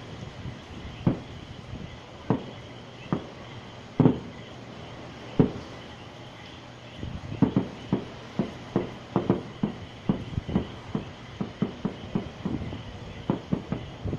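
Fireworks going off in a string of sharp bangs. They come about a second apart at first, then quicken to several a second from about halfway through.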